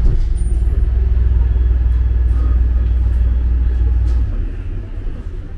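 Low steady rumble of a tourist road train carriage, which drops away suddenly about four seconds in.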